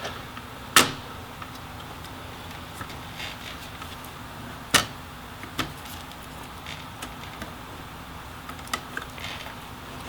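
Sharp clicks and light taps of small hard parts being handled inside an opened laptop, as the heatsink assembly is wiggled loose: two louder clicks, about a second in and just before the middle, with fainter ticks after.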